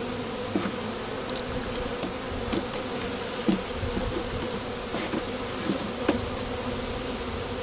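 A mass of honeybees freshly shaken from a package into a hive, buzzing in a steady dense drone, with a few light clicks scattered through it.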